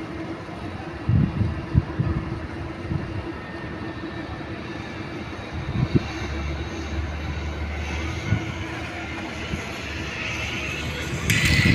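Steady city traffic hum with a faint steady drone and a few low thumps. A hiss builds late on, and a sharper, brighter hiss breaks in suddenly just before the end.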